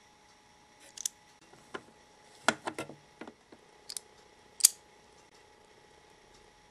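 Sharp clicks and taps from a miniature plastic toy disher as its spring lever is squeezed to scoop and drop sherbet into a tiny sundae glass: a scattered run of about ten small clicks, with a cluster a third of the way in and the sharpest snap about two-thirds of the way in.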